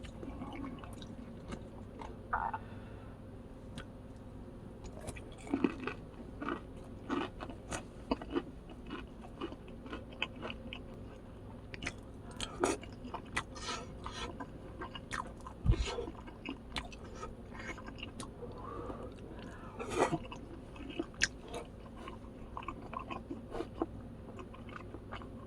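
Close-miked eating: irregular chewing with many short crunches and wet clicks of food in the mouth.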